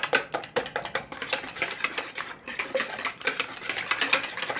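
Wire balloon whisk beating raw eggs by hand in a plastic mixing bowl, the wires clicking rapidly and rhythmically against the bowl.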